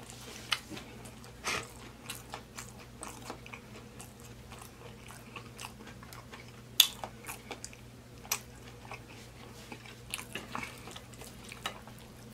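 A person chewing a mouthful of chili cheese fries and pork belly: scattered short, sharp mouth clicks, the loudest about seven and eight seconds in, over a faint steady low hum.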